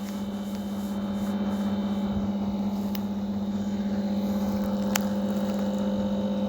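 A steady electrical hum, with two faint clicks about three and five seconds in.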